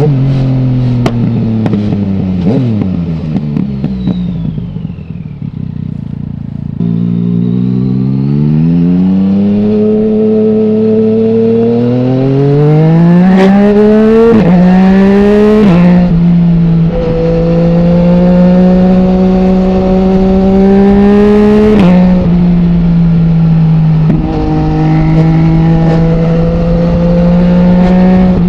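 Yamaha MT-09's 847 cc three-cylinder engine through an Akrapovic full-system exhaust with no dB killer, while riding. It first winds down off the throttle. Then it pulls back up, rising in pitch with several sharp drops at the gear changes, and settles to a steady cruise.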